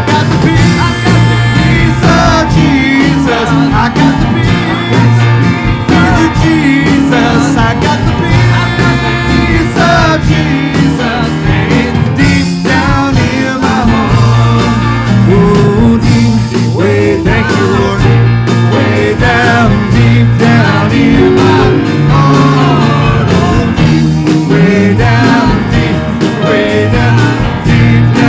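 Live praise band playing an upbeat country-gospel song, with bass, guitar and a steady beat under a wavering melody line.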